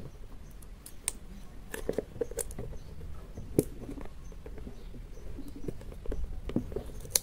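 Fingernails scratching and picking at the edge of a small box's tightly sealed packaging: irregular small clicks and scrapes.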